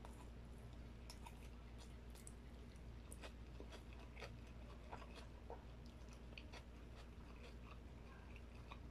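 Chewing and crunching of crispy fried chicken close to the microphone: faint, irregular crisp crackles over a steady low hum.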